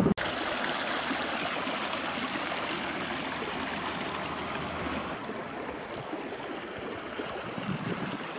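Small stream running and splashing over a low drop in its bed: a steady rush of water that begins abruptly and eases slightly toward the end.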